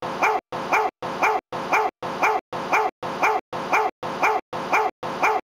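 A short, pitched animal yelp, cut and looped: the identical cry repeats about twice a second, each one separated by a dead-silent gap.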